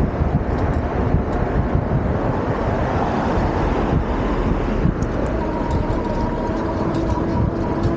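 Wind buffeting the microphone over steady road and tyre rumble while riding a Super73-Z1 electric bike. About five seconds in, a steady whine joins it.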